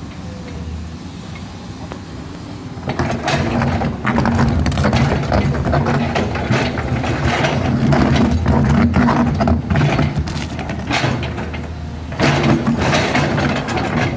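Komatsu PC210 excavator's diesel engine running steadily, then from about three seconds in working louder as the bucket teeth dig and scrape through hard rocky soil, with rocks and rubble knocking and crunching against the steel bucket.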